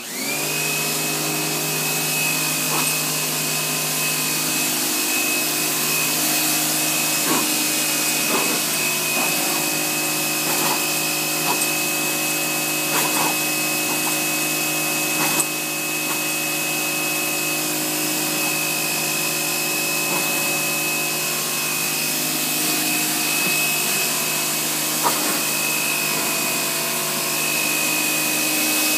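Pressure washer starting up and then running steadily: a constant high motor whine and hum over the hiss of the water jet striking concrete, with a few light clicks.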